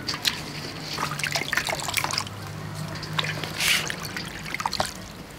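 Water dripping and trickling from freshly washed shredded vegetables draining in a stainless steel colander, in scattered small drops.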